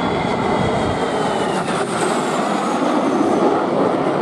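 Dassault-Dornier Alpha Jet's twin Larzac turbofans passing by: loud, rushing jet noise with a high whine that falls in pitch as the jet goes past.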